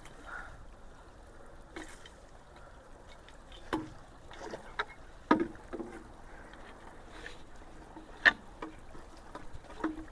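Creek water rushing and draining into a culvert that is being unclogged, with a few sharp knocks and splashes, the loudest about five and eight seconds in.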